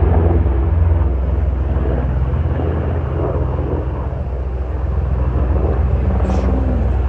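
Steady low rumble of a motor vehicle's engine.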